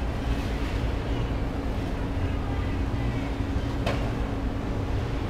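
Steady low rumble and a constant hum from a cruise ship getting under way, heard from its open deck with wind on the microphone. A single sharp click comes about four seconds in.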